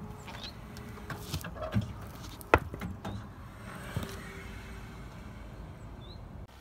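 Car tyre rolling slowly onto a round white root vegetable on concrete, with crackling and crunching under the tread and one sharp crack about two and a half seconds in.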